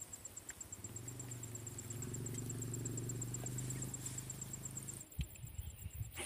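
A low, steady motor drone that comes in about a second in and cuts off suddenly about five seconds in, over a fast, even, high-pitched insect-like ticking. A few low thumps follow near the end.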